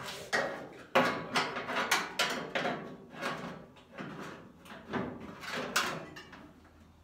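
Metal roll pan knocking and scraping against the pickup's rear body as it is shifted into line for a test fit: a run of irregular clunks and rubs, the sharpest about a second in, dying away near the end.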